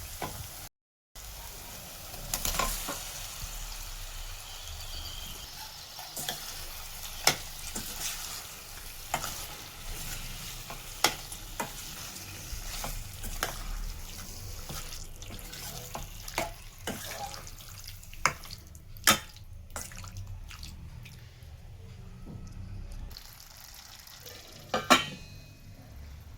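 Food frying in a pan with a light sizzle while a spoon stirs, scraping and knocking against the pan every second or so. The sound drops out briefly about a second in, and the loudest knock comes near the end.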